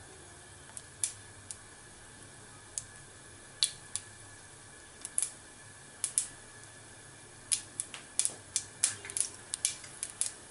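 Mustard seeds popping in hot oil in a nonstick kadhai: scattered sharp pops, only a few at first and coming faster toward the end as the seeds begin to splutter in the tempering.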